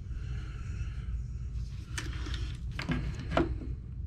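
A few light clicks and knocks of small plastic RC truck parts being handled: one about two seconds in, then a short cluster about a second later. Underneath is a steady low hum.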